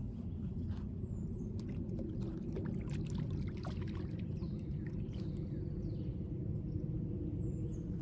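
Steady low rumbling outdoor noise, with a few faint high chirps over it.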